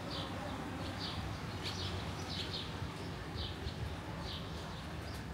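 A small bird calling repeatedly: a short, slightly falling high note, a little more than once a second, over a steady low rumble.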